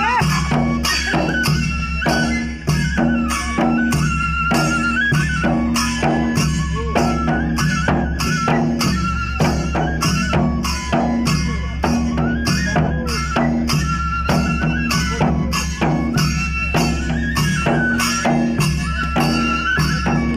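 Folk music with a fast, steady drum beat and jingling percussion under a wandering melody line.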